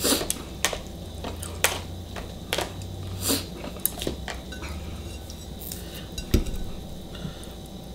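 Chopsticks clinking and scraping against a bowl as noodles are stirred: a string of separate clicks. A single heavier knock comes a little after six seconds in.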